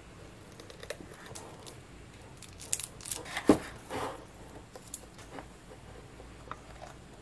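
Small resin figurines and a bottle-brush tree being handled and set down on the top of a paper mache box: scattered light clicks and taps, bunched in the middle, with the loudest knock about three and a half seconds in.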